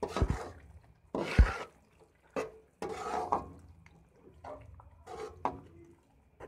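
Slotted metal spoon scraping and knocking against a wok while stirring chicken and vegetables in oil, in about five irregular strokes with wet, sloppy noises, two of them with a heavy knock near the start and about a second and a half in.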